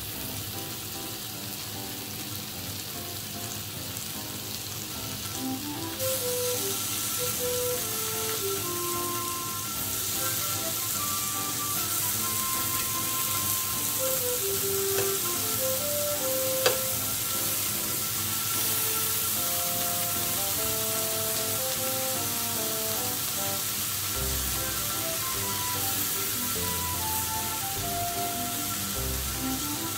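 Pork belly slices and green peppers sizzling steadily on a tabletop gas grill plate, a little louder from about six seconds in, with one sharp click about seventeen seconds in. Background music plays over the sizzling.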